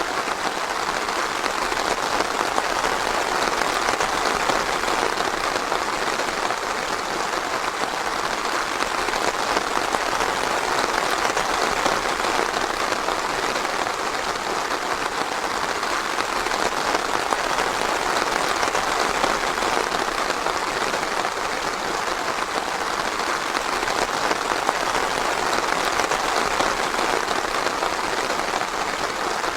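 Steady, dense rainfall: an even patter of rain with no thunder or other events.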